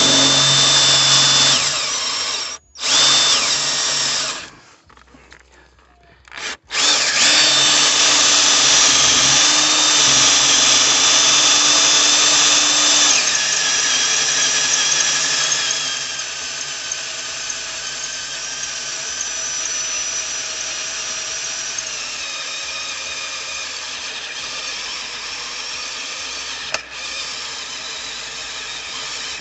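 Cordless drill boring holes in a metal strap. It gives two short bursts, then a pause, then one long steady run that grows quieter about halfway through.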